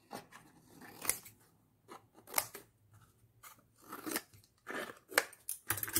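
Scissors cutting a thin food container: a series of separate short snips at an uneven pace.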